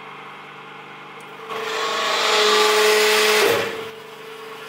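Hydraulic forging press running with a steady hum. About a second and a half in, it grows loud for about two seconds, with a whine in it, as the ram squeezes a red-hot 52100 steel bearing ball flat. It then drops back to the steady hum.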